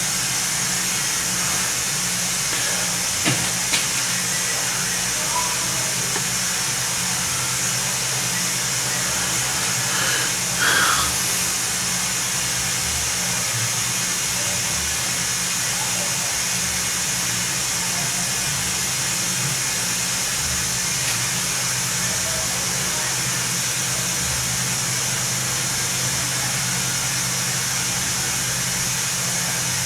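Homemade air compressor running steadily, a low motor hum with a hiss over it as it builds pressure. There are two light clicks about three seconds in and a brief louder noise about ten seconds in.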